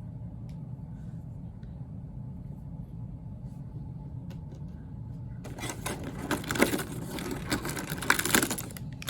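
A low steady hum with a few faint clicks, then, about five and a half seconds in, a small plastic blind bag holding a Disney Doorables figure crinkles and rustles for about three seconds as it is handled.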